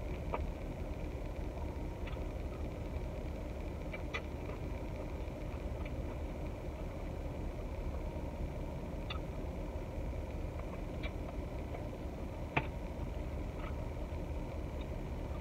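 Steady low hum of a car engine idling, heard inside the car's cabin, with a few light clicks and ticks from fingers picking at a fried chicken wing. The sharpest click comes about three quarters of the way through.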